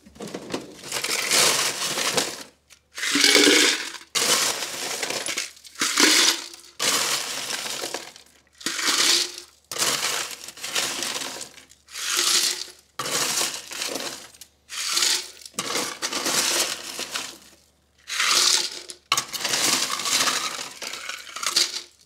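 Ice cubes clattering and clinking against a plastic pitcher in about a dozen separate rattling bursts, one every second or two.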